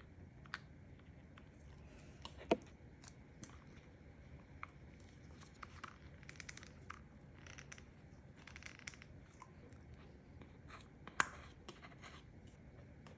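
Small handling sounds: scattered light clicks, taps and rustles, with two sharper knocks, one about two and a half seconds in and one about eleven seconds in.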